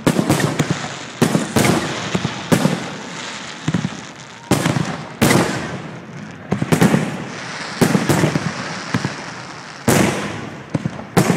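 Fireworks exploding overhead: about a dozen sharp bangs at irregular intervals, each trailing off into a rumbling echo and crackle before the next.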